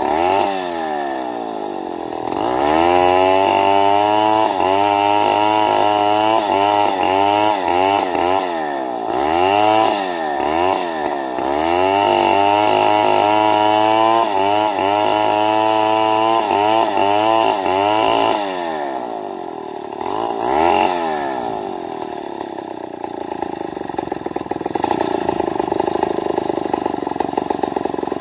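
Stihl MS 070 two-stroke chainsaw ripping lengthwise through a large albasia log, its engine speed sagging and picking up again over and over under the load of the cut. After about 18 seconds it runs lower and steadier, with one short rev about 20 seconds in.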